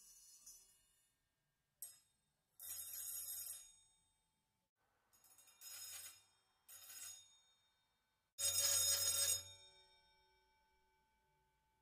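Old circular saw blades struck by electrically triggered solenoid beaters, giving bursts of bright, bell-like metallic ringing. There is a brief tap, then four longer rattling bursts. The loudest comes about eight and a half seconds in and rings on, fading over the next couple of seconds.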